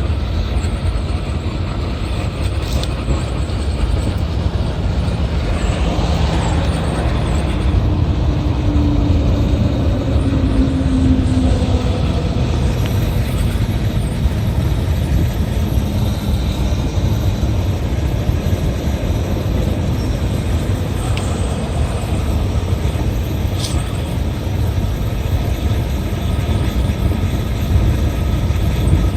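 Steady low rumble of a running engine or heavy machinery, with a faint pitched tone that slides slightly downward about eight to eleven seconds in.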